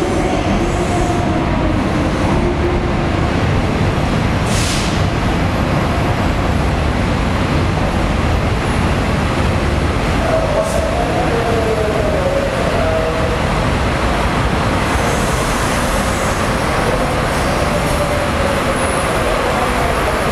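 A DD51 diesel-hydraulic locomotive hauling blue passenger coaches slowly into a station platform: a steady loud rumble of the running diesel engine and wheels rolling over the rails, with a wavering tone from about ten to thirteen seconds in.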